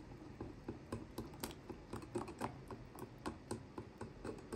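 Wire whisk clicking against a glass bowl as it beats thin pancake batter, a quick regular rhythm of about four strokes a second.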